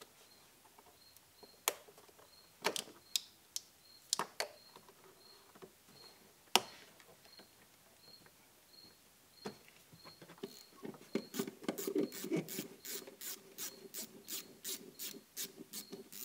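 Hand work on an engine's plastic air-intake parts: separate sharp clicks and knocks as rubber hoses are pulled off their fittings. Then, from about ten seconds in, a fast run of clicks, about three or four a second, with a low hum under them.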